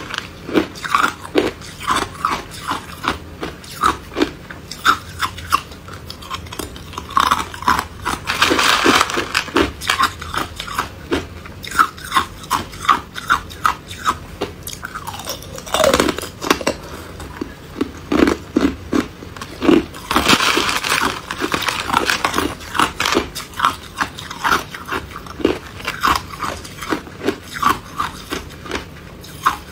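Crushed ice crunched between the teeth: sharp crunches about two a second, with two longer gritty stretches, about a third of the way in and again past the middle.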